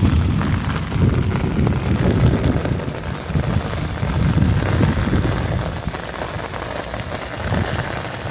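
Heavy rain falling, with strong wind buffeting the microphone in rumbling gusts that swell and fall every second or so.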